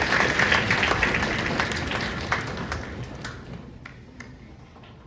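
Audience applauding, a dense patter of many hands that dies away over a few seconds to a few scattered claps.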